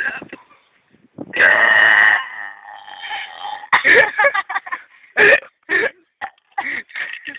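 A person burping, with one long, loud burp about a second in, followed by several shorter bursts.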